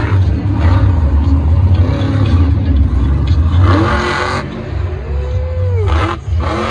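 Monster truck's supercharged V8 engine running loud with a deep rumble. It revs up and down in rising and falling sweeps, most strongly in the second half, as the truck drives and turns on dirt.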